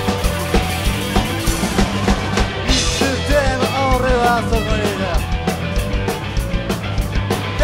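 A rock band playing live, with a drum kit keeping a steady beat under electric guitars. About three seconds in, a sliding, bending melody line comes in over it.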